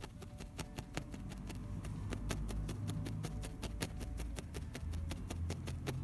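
Felting needle stabbing up and down into a twist of wool on a felting mat, a steady run of sharp ticks about five a second, as the wool is felted into a firm, bound shape.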